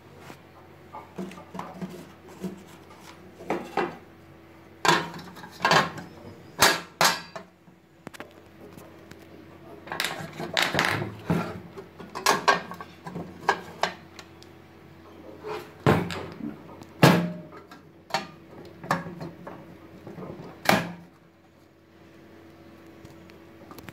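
Irregular clicks and knocks of a sheet-metal breaker enclosure, its cover and plastic miniature circuit breakers being handled and fitted together by hand, over a faint steady hum.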